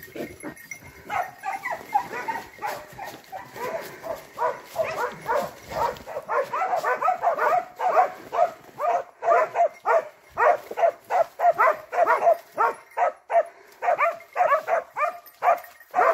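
Hunting dogs barking at a wild boar in a rapid, continuous run of barks, about two to three a second. The barking grows more regular from about six seconds in.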